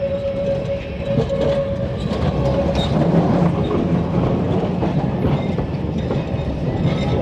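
Electric street tram running along its track, wheels clattering over the rails, with a steady whine that fades out about two seconds in.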